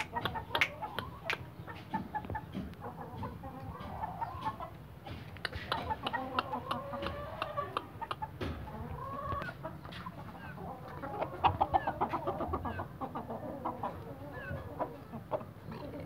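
Chickens clucking with short calls throughout, with a quick run of clucks about three quarters of the way through.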